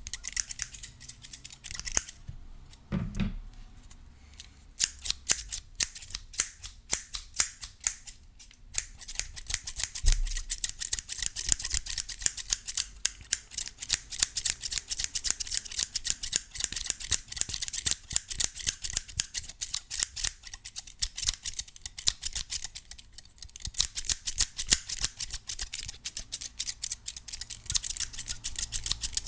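Scissors snipping close to the microphone in quick trains of sharp metallic clicks. There is a low thump about three seconds in, sparser snips for a few seconds after it, then rapid continuous snipping from about nine seconds on.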